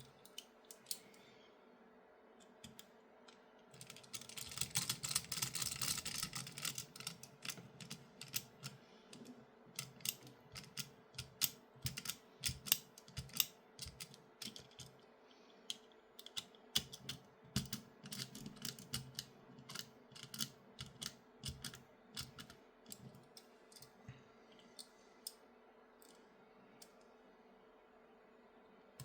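Small M2 screws and 3D-printed plastic chassis parts being handled and screwed together, making irregular light clicks and taps. A short rattling patch comes about four seconds in, and there are many sharp clicks in the middle stretch. A faint steady hum runs underneath.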